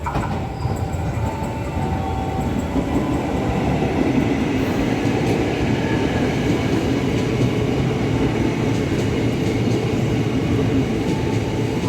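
JR East 205 series electric commuter train running on the rails: a steady rumble of wheels and running gear that grows louder over the first few seconds, then holds.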